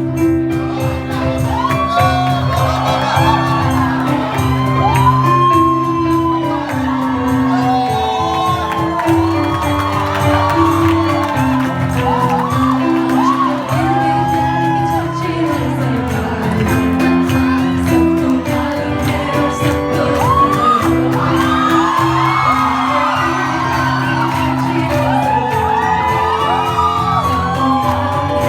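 Bollywood retro song playing loudly over a hall sound system, with singing and a steady beat, and an audience whooping and shouting along.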